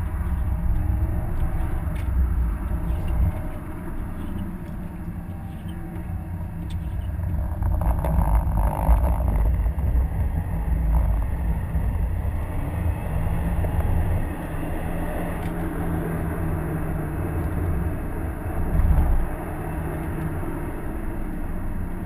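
Inside the cabin of a 2011 Subaru WRX with its turbocharged EJ255 flat-four under way: steady engine drone over road and tyre rumble. It gets louder about eight seconds in, and there is a brief loud rumble near the end.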